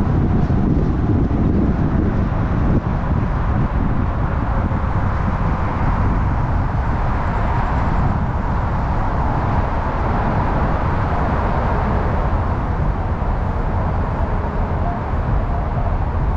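Car driving: steady road and tyre noise with a low rumble.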